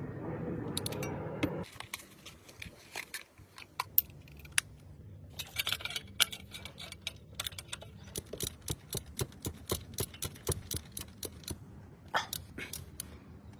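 Sharp, irregular metallic clicks and taps of hand tools at work during a service, coming about three a second for a while in the middle. A steady hum stops about two seconds in.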